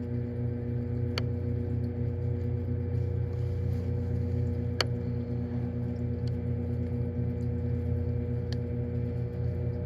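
Microwave oven running with a steady hum, its heating cycle still under way, while it cooks a gummy candy; a sharp click sounds about a second in and again near five seconds.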